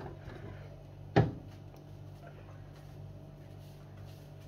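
A single sharp knock, like a cupboard door or object bumped in a kitchen, about a second in, over a steady low hum in the room.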